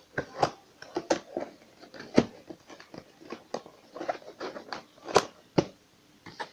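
Irregular clicks, taps and knocks from handling a new electric kettle and its packaging, with faint rustling; the sharpest knock comes about two seconds in.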